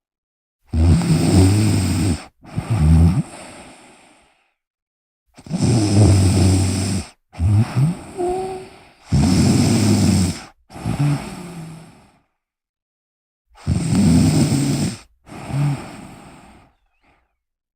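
A sleeping person snoring: four breath cycles, each a longer rattling snore followed straight away by a shorter one, with a pause of about a second between cycles.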